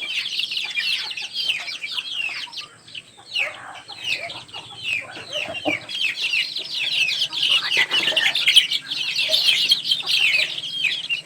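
A group of baby chicks peeping: many short, high, falling chirps overlapping in a constant stream, thinning briefly about three seconds in and growing louder in the second half.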